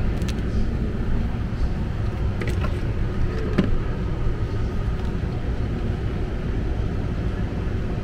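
Furnace air handler blower running steadily with a low rumble, pushing air against very high static pressure in the ductwork. A few light clicks and taps come as a static pressure probe is handled at the sheet-metal supply duct.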